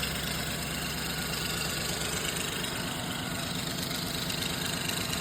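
Car engine idling steadily with a fast, even pulsing tick. It is the engine whose noise was feared to be rod knock; a listener thinks the knock is gone and takes the tapping for an exhaust leak.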